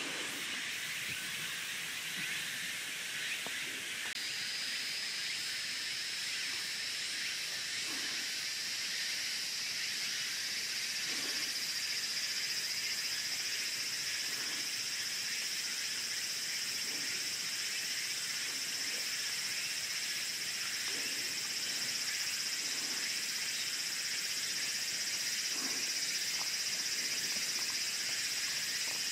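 Steady high-pitched outdoor hiss, with a higher, even drone joining about four seconds in and holding steady.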